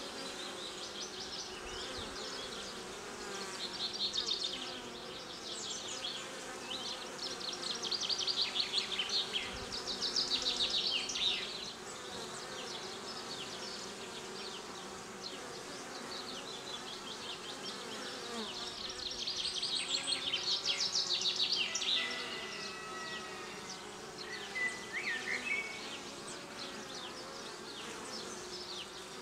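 Many honeybees buzzing at a hive entrance: a steady low hum of wings as they land, crowd the entrance and take off. Several times, for a few seconds each, a fast high-pitched chirring rises over the hum and is the loudest sound.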